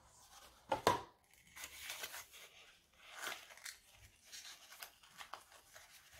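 Cardboard perfume packaging being handled: two sharp cardboard knocks about a second in, then irregular scraping and rustling as the cardboard insert holding the bottle is slid out of its box.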